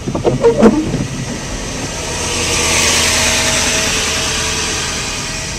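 A heavy truck passing close by: its engine and tyre noise swell to a peak about three seconds in, then fade. A brief knock and short pitched sounds come in the first second.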